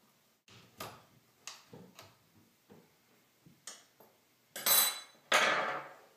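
Flat-blade screwdriver working a Phillips screw in the iMac's cover: a few small metallic clicks, then two louder scrapes near the end.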